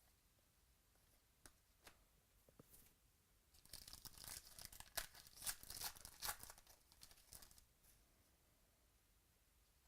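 A trading-card pack wrapper being torn open and crinkled, starting about three and a half seconds in and lasting about four seconds, after a few faint clicks.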